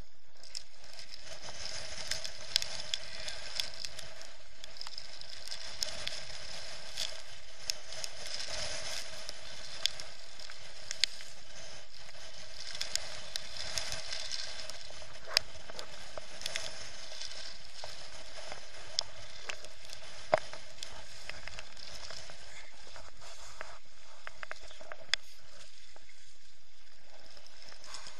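Steady hiss of strong wind and rushing water on a sailing kayak, picked up by a GoPro, with scattered sharp clicks and taps as spray and chop strike the hull and camera.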